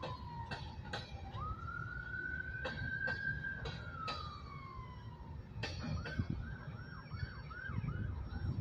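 A siren wailing, its pitch sliding down, back up and slowly down again, then switching to a fast yelp of about three chirps a second for the last few seconds. Under it, an empty freight train of open hopper cars rolls by with a low rumble and a few sharp clanks.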